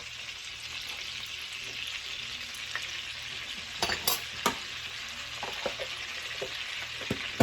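Butter melting and sizzling in hot olive oil in a frying pan, a steady hiss. A few short taps and scrapes of a utensil against the pan come about four seconds in and again near the end, as the butter is cut down.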